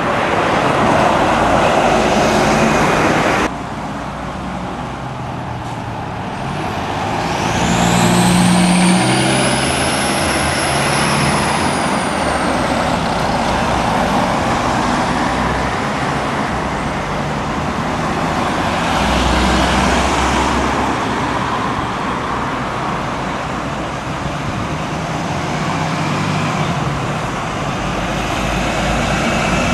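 Single-deck service bus engine running as the bus drives past and turns through a junction, with road traffic around it. About seven seconds in, a high whine rises and falls in pitch over several seconds, and the engine swells again about twenty seconds in.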